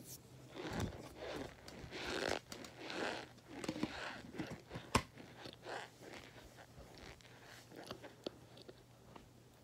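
Close-up biting and crunching of hard starch chunks, then chewing; a run of crunches in the first half, a single sharp crack about five seconds in, then quieter, sparser crunches.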